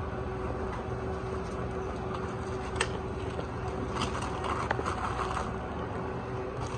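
Steady hum of sandwich-shop equipment, with plastic food-service gloves and deli paper rustling as a sub is handled and folded, and a single sharp click about three seconds in.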